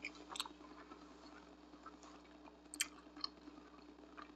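A person chewing a mouthful of stuffed pizza burrito with the mouth mostly closed: a handful of faint, scattered wet mouth clicks, the clearest a little under three seconds in.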